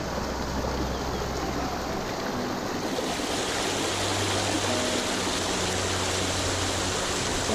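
Steady rush of water, as from a waterfall or fast stream, turning brighter and hissier about three seconds in. Soft background music runs faintly underneath.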